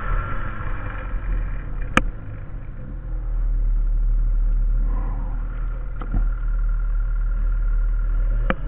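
Snowmobile engine running as the sled moves over snow, its pitch rising and falling and the sound getting louder from about three and a half seconds in, with a few sharp knocks.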